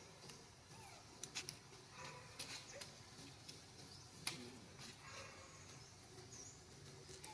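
Near silence: a faint outdoor background with a few soft scattered clicks, the clearest about four seconds in, and one brief faint high chirp near the end.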